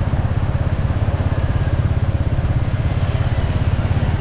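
Motorbike engine running steadily while riding, heard from on the bike, with a rapid, even low throb.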